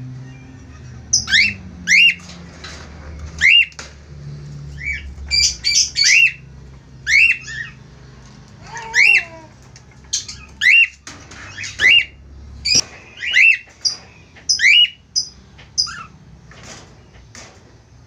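Cockatiels giving short, loud squawking calls over and over, roughly one a second, each a quick rise and fall in pitch, tailing off near the end.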